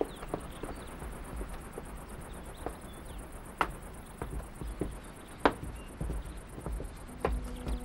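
Sparse light taps of heeled shoes stepping down carpeted stairs, over a quiet background with faint high chirps.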